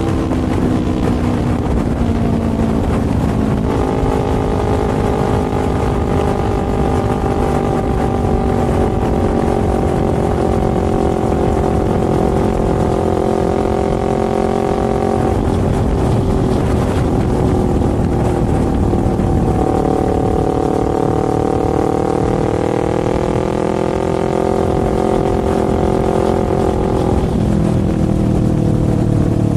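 Sport motorcycle engine running at road speed under a steady rush of wind. The engine note holds fairly steady, steps up about four seconds in, climbs again around twenty seconds and drops near the end.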